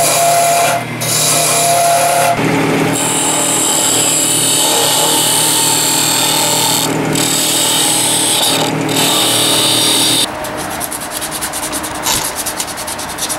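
Wood lathe spinning a wooden top blank while a turning gouge cuts it, a steady hissing scrape with a few brief breaks. About ten seconds in it drops to a quieter, rapid scratchy ticking.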